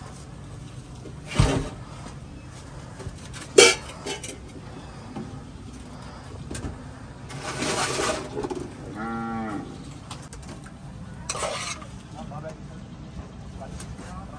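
A cow mooing once, a single rising-and-falling call a little past halfway, over a busy background with two sharp knocks early on and several short scraping noises.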